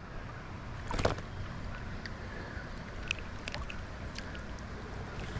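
Steady rushing wash of river water, with a sharp knock about a second in and a few faint ticks around three seconds.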